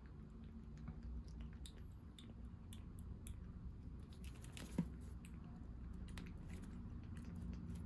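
Baby kitten suckling milk from a nursing bottle: faint wet clicks and smacks, irregular, about three a second, with one louder smack about five seconds in.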